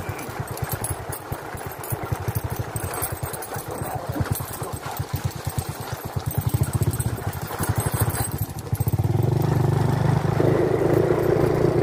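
Small motorcycle engine running on the move, with a rapid low pulsing beat. About eight and a half seconds in, it speeds up and gets louder and steadier.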